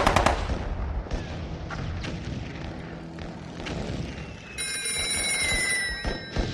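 Battle sound effects: the end of a rapid machine-gun burst, then scattered shots and impacts. From about four and a half seconds in, a high ringing sounds for about a second and a half, with one whistling tone falling in pitch.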